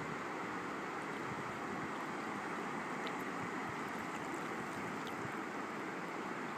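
Shallow water moving over a sandy, stony bottom: a steady rush of water with a few faint ticks.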